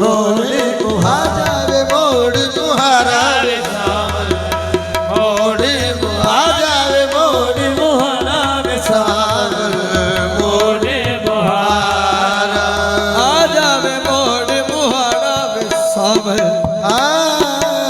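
Qawwali music: tabla playing under a wavering, ornamented sung melody, with a steady held tone beneath.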